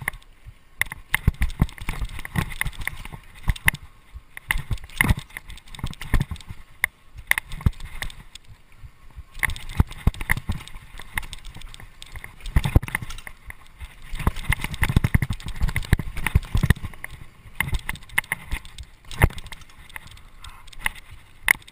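Mountain bike clattering down a bumpy dirt trail: frequent irregular sharp knocks and rattles as it hits bumps, with bursts of low tyre rumble over the ground.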